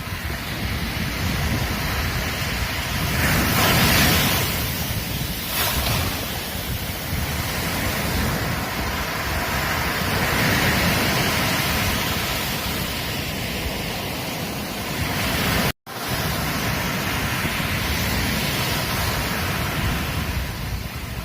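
Ocean surf washing onto a beach: a continuous rush of breaking waves that swells about three to four seconds in and again around ten seconds. The sound cuts out for an instant about three quarters of the way through.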